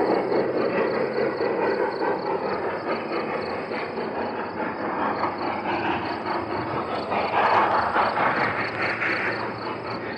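Train running by, a steady rumble and rattle that swells louder about seven seconds in, then fades toward the end.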